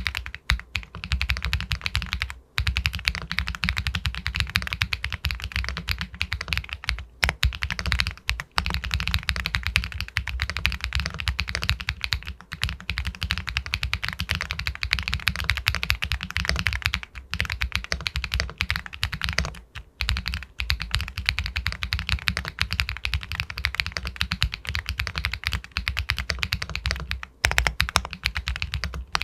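Fast, continuous typing on an Epomaker Galaxy 80 Pro aluminium mechanical keyboard with White Jade linear switches: a dense stream of keystrokes with a pebble-like clack, broken by a few short pauses.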